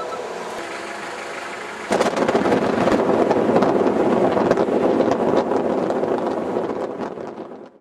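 Road noise from a moving car with heavy wind buffeting and crackling on the microphone. It gets louder about two seconds in and fades out near the end.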